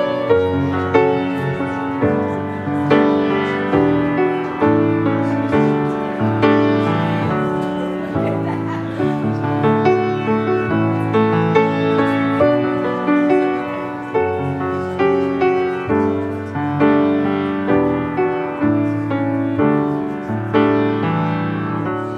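Piano playing a slow piece of held chords, each chord struck and left to ring, softening toward the end.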